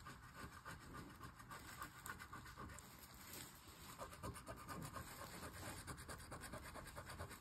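A coin scraping the coating off a paper scratch-off lottery ticket in rapid back-and-forth strokes, faint.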